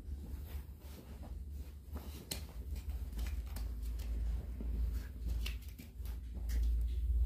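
Bare footsteps on a foam mattress and the floor: soft thuds and rustles with scattered small clicks, over a low steady rumble that grows louder near the end.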